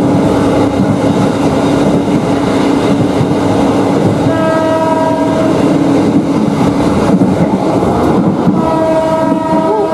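Passenger train running at about 85–90 km/h, heard from on board: a steady rumble of wheels on rail. The locomotive's horn sounds twice, each blast a little over a second long, about four seconds apart.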